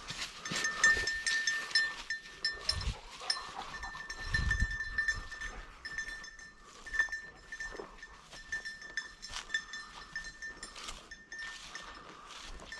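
Bell on a hunting dog's collar jingling irregularly as the dog runs and casts through the cover, with a few dull low thumps.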